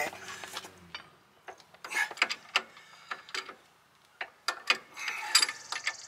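Hand socket ratchet clicking in short, irregular runs as it is worked on a tight rear brake caliper bolt.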